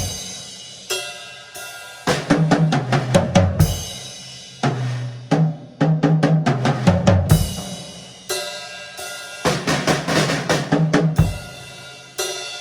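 Drum kit solo: fast fills of rapid strokes across snare and toms, stepping down in pitch, with bass drum, each phrase landing on a cymbal crash that rings out before the next fill starts.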